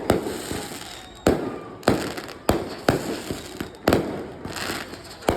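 Fireworks bursting: about seven sharp booms at uneven intervals of roughly half a second to a second, each trailing off in a short rumble and crackle.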